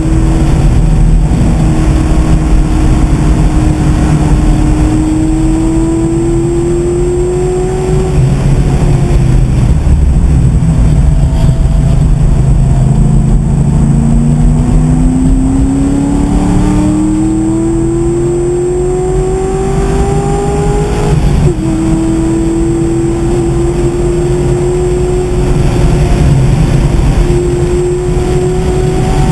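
2009 Corvette Z06's 7.0-litre LS7 V8, heard from inside the cabin, pulling hard at track speed: its note climbs, falls away as the car slows for a corner, then climbs again. About two-thirds of the way through it steps down sharply at a gearshift and keeps climbing, over a steady rush of wind and road noise.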